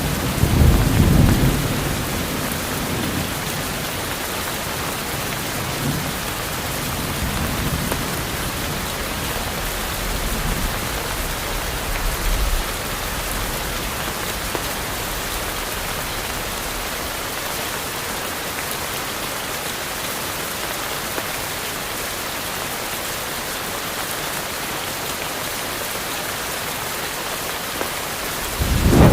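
Steady rain in a tropical forest, with low rolls of thunder rumbling under it: a strong roll about a second in, fainter ones a few times in the middle, and another strong one right at the end.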